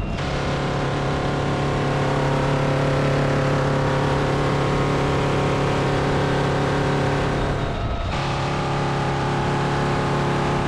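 Steady drone of a UH-1Y helicopter in flight, heard from inside the cabin at the open door gun position. It dips briefly about eight seconds in.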